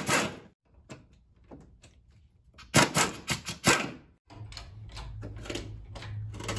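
Hand tools clicking and knocking on the 14 mm motor mount bolts as they are taken out, with a quick run of loud clicks about three seconds in. A low steady hum starts after about four seconds.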